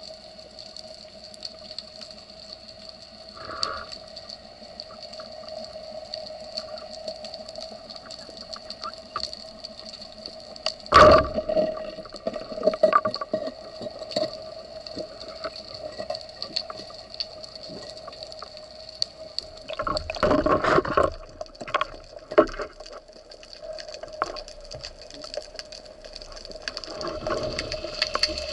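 Underwater sound picked up by a camera in its housing on a spearfisher's speargun dive: a steady hum with faint water noise, a single sharp knock about eleven seconds in, and a burst of rushing water noise around twenty seconds in and again near the end.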